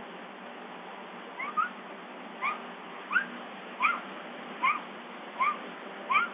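Bobcat meowing repeatedly for food: short, upward-sliding calls, about seven of them, roughly one every three-quarters of a second from about a second and a half in, over a steady hiss.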